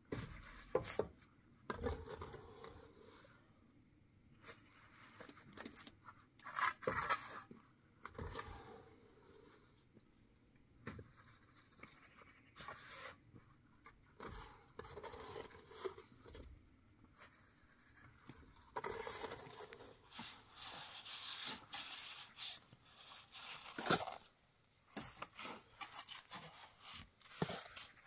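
Mason's trowel scraping and scooping wet cement mortar out of a bucket and spreading it onto concrete blocks, in irregular scrapes with a few sharp knocks.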